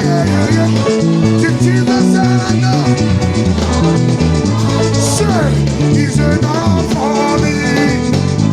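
Live gospel band music: an electric bass plays a busy line of quickly changing low notes under guitar lines and drums, with a cymbal crash about five seconds in.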